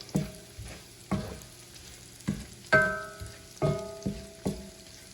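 A metal utensil knocks against a skillet of frying bacon about seven times, each knock ringing briefly, the loudest about three seconds in. A faint sizzle runs underneath.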